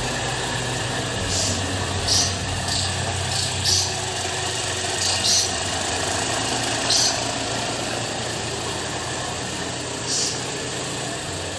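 Car engine idling steadily, a low even hum, with short brief hissing scuffs now and then.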